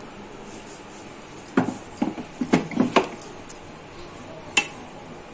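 Stainless-steel mixer-grinder jar and its lid clinking and knocking as they are set onto the motor base: a quick cluster of sharp clinks from about a second and a half in to three seconds, then one more click near the end. The motor is not yet running.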